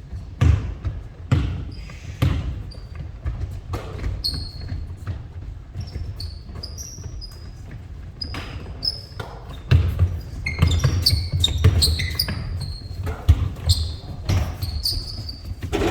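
Basketballs bouncing on a gym floor with short, high sneaker squeaks. The bounces come thicker and faster from about ten seconds in.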